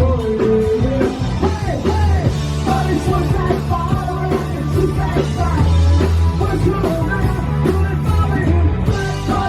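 Live rock band playing loudly, with a full-band sound of bass, bending melodic lines and drums, in a punk or rock-and-roll style.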